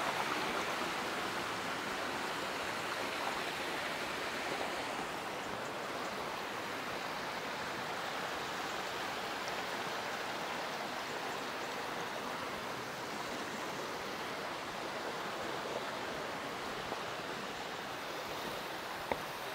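Mountain stream rushing over rocks in a steady, unbroken hiss, with a few faint ticks near the end.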